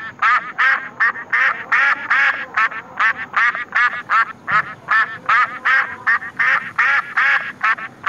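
Duck quacking in a fast, steady series, about three quacks a second.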